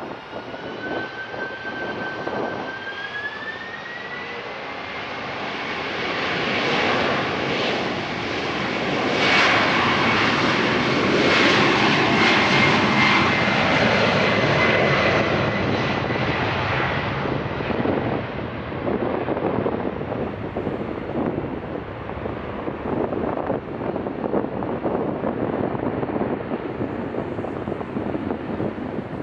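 Boeing 767-300 freighter's twin turbofan engines spooling up to takeoff thrust with a rising whine in the first few seconds. The jet noise grows loudest through the takeoff roll, about ten to sixteen seconds in, then fades to a crackling sound as the aircraft climbs away.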